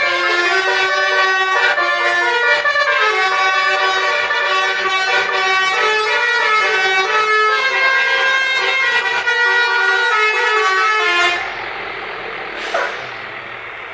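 Bus 'telolet' musical air horn playing a quick melody of stepping notes. It cuts off suddenly about eleven seconds in, leaving a quieter steady noise with one short falling tone.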